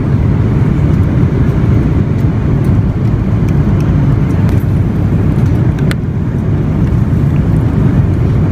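Airliner cabin noise in flight: the steady low roar of the jet engines and rushing air, heard inside the cabin. A light click sounds about six seconds in.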